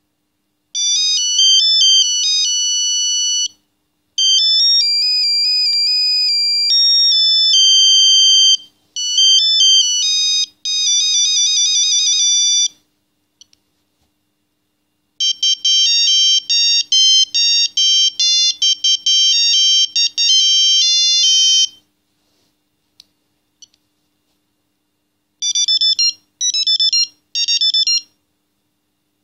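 Philips Xenium 989 mobile phone playing its built-in ringtones one after another: several short, high-pitched electronic melodies with several notes at once, each lasting a few seconds and stopping abruptly, with silences between them.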